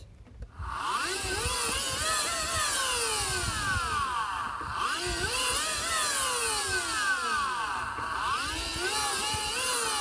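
Vacuum cleaner universal motor turned by a bicycle wheel and running as a generator, its field windings powered. Its whine rises and falls in pitch in slow waves as the wheel speeds up and slows down, starting again after a short pause just after the start, with low rumbling underneath.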